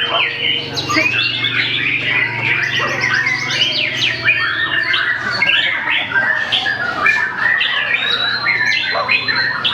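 White-rumped shama singing without a break: a fast, varied run of whistles, trills and chattering notes that glide up and down.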